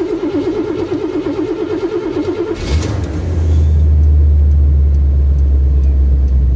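Car engine being cranked by its starter for a few seconds, catching about two and a half seconds in and then running with a steady low rumble.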